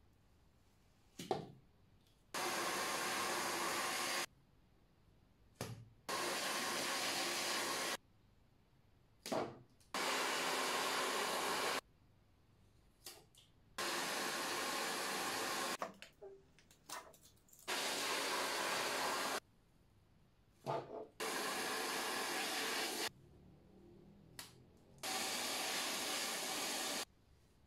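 Hand-held hair dryer blowing hot air onto a plastic basket's sticker to soften the glue for peeling, in seven bursts of about two seconds each that start and stop abruptly. Short clicks and knocks come in the gaps between bursts.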